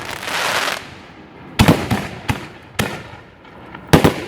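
Fireworks bursting: a hissing crackle at first, then a cluster of sharp bangs about a second and a half in and one more loud bang near the end.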